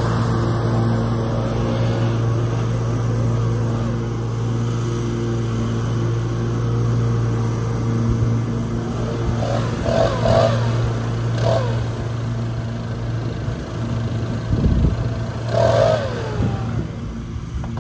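Small gasoline lawn-care engines running steadily, a zero-turn riding mower cutting grass among them, with a constant low drone.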